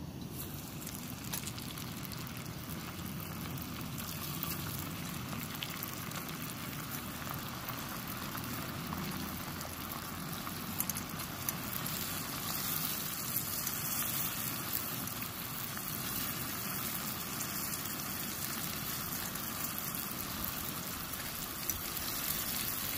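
Cornmeal-and-flour-coated oysters deep-frying in hot oil in a small camp pot, a steady sizzle with small pops that builds after the first few seconds.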